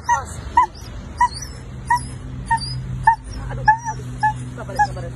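A sick, maggot-infested dog whimpering in distress: a string of short, high cries, about two a second.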